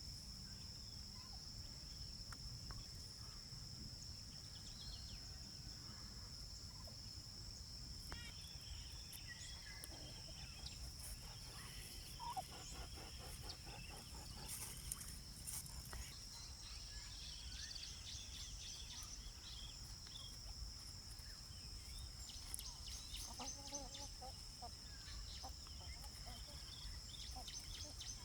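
Rural outdoor ambience: a steady high-pitched insect drone and low background rumble, scattered small-bird chirps, and a couple of faint poultry calls, one about halfway through and one near the end.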